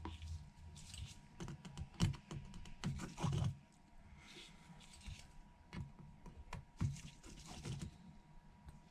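Small precision repair tools clicking and tapping irregularly against an iPhone's internals and tiny screws, while the home button bracket is unscrewed and lifted out.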